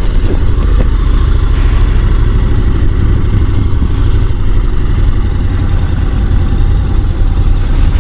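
Honda NC750 motorcycle under way at road speed, heard from the rider's helmet microphone: a loud, steady rush of wind noise over the running engine.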